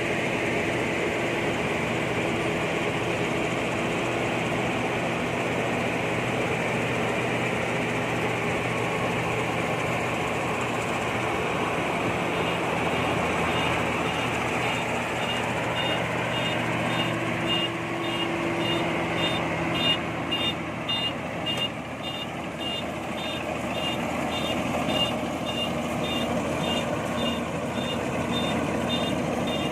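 Combine harvester's diesel engine running steadily. About twelve seconds in, a reversing alarm starts and keeps beeping at an even rate.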